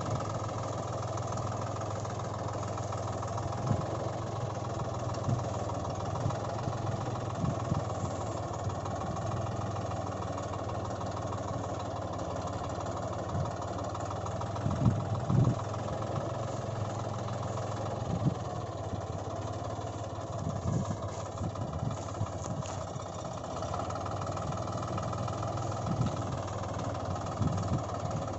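Tractor engine running steadily at a low idle-like pace, with a few short low thumps.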